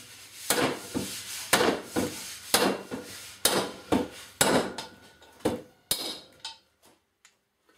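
Mallet striking a race-bearing driver, knocking a wheel bearing into the hub of a Yamaha FZR600 motorcycle rear wheel: a steady series of sharp knocks about two a second. The knocks stop about six and a half seconds in, once the bearing is seated.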